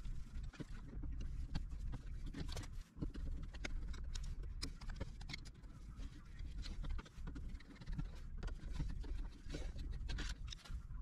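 Phillips screws being backed out of an old deadbolt's cover with a screwdriver: a run of small, irregular clicks and scrapes of metal on metal.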